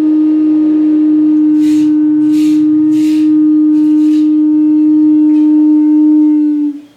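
Clay wind instrument sounding one long, steady low note that stops shortly before the end, with a few short hissing sounds over it in the middle.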